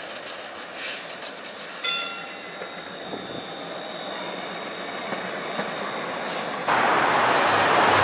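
PCC streetcar passing on a curve: its steel wheels click over the rail, then about two seconds in a knock is followed by a steady high-pitched wheel squeal on the curved track that lasts several seconds. Near the end the sound cuts abruptly to louder, steady street traffic noise.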